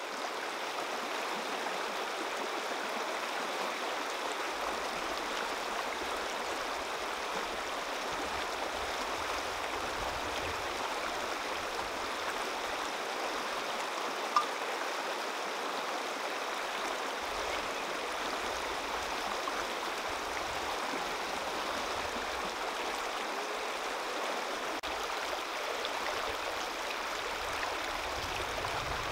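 Shallow river running fast over rocks: a steady rushing of water. A single sharp click sounds about halfway through.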